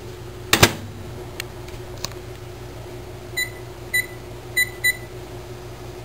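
A microwave oven's door is shut with a sharp clunk about half a second in, then its keypad gives four short electronic beeps as the cooking time is set, over a steady low hum.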